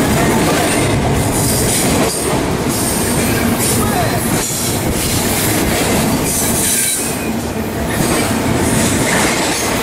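Double-stack intermodal freight train passing close by at speed: the loud, steady rumble and clatter of the well cars' wheels on the rails, with a high hiss that swells and fades every second or two.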